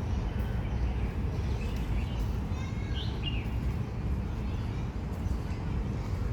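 Birds chirping a few times about halfway through, over a steady low rumble on the microphone.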